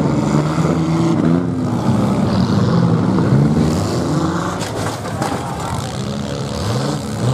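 Several demolition derby cars' engines running and revving together, their pitches rising and falling, with a couple of sharp crashes about two thirds of the way in as cars hit each other.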